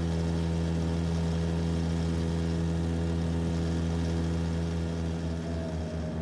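An engine running steadily at an even speed, a low droning hum, with a higher whine joining about five seconds in.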